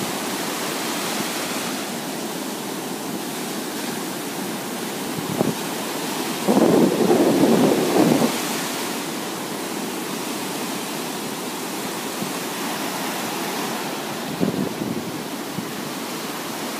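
Heavy post-storm surf breaking on a beach: a steady rushing roar of waves, with wind buffeting the microphone. A louder, rougher rush comes about six to eight seconds in.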